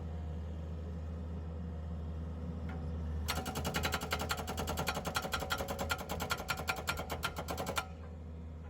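Iron Rhino hydraulic jackhammer on a Kubota skid steer hammering in a fast, even rattle of many blows a second, starting about three seconds in and stopping near the end, over the steady hum of the skid steer's engine.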